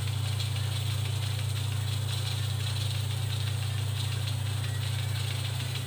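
Steady low hum with a faint hiss over it, unchanging throughout; the hand-rolling of the dough on the silicone mat is not distinctly heard.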